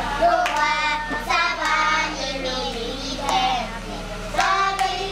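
A group of children singing a song together, with a few sharp hand claps, over a steady low hum.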